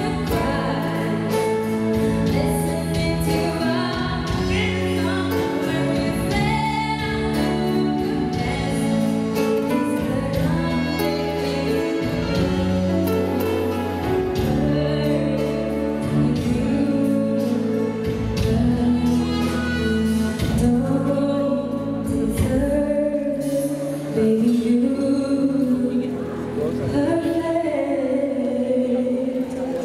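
A woman singing live into a microphone over amplified instrumental backing music.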